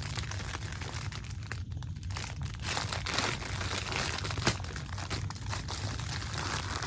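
Crinkling of the small packaging bag holding a pack of soft locs hair as it is handled, with a sharp snap about four and a half seconds in.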